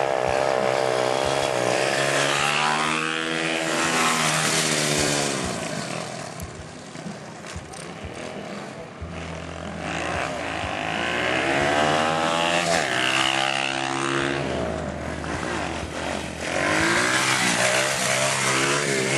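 Motorcycle engines revving up and down over and over during wheelie stunts, the pitch rising and falling in repeated sweeps. There is a quieter, lower stretch in the middle.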